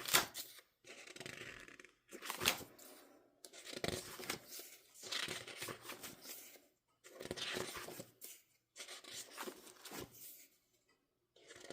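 Paper and plastic album packaging being handled and torn: a series of short rustling, tearing sounds, one every second or so, with brief pauses between them.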